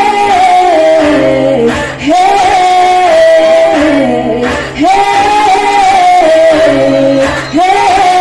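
Girls singing into microphones over a musical accompaniment with a low bass line. The sung phrases come about every two and a half seconds, each starting on a high held note and stepping down in pitch.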